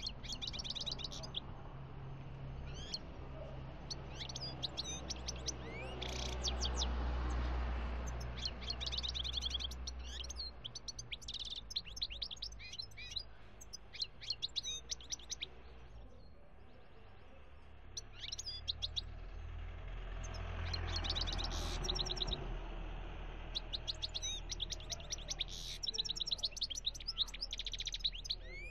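Caged European goldfinch singing: phrases of fast, high twittering notes and rapid trills, broken by short pauses. A low rumble in the background swells twice, about a quarter of the way in and again about two-thirds of the way in.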